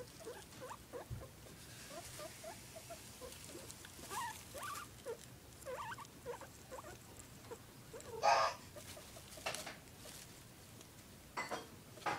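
Guinea pig nibbling and chewing parsley among hay bedding: soft small clicks and crunches with light rustling of the hay, and a few louder rustles about eight seconds in and near the end.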